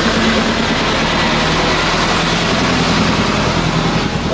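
An engine running steadily, a low drone whose pitch drops slightly about a second in.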